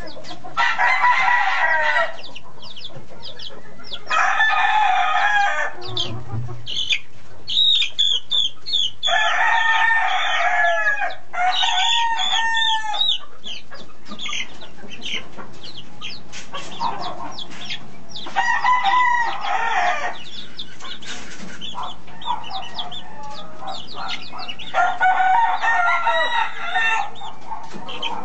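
Rooster crowing again and again, each crow about two seconds long, with chicks peeping in short high chirps between the crows.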